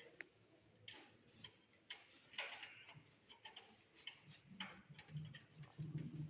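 Faint, irregular clicks and light taps of screws and a screwdriver against a desktop computer's metal case while the power supply unit is screwed back in, about a dozen in all.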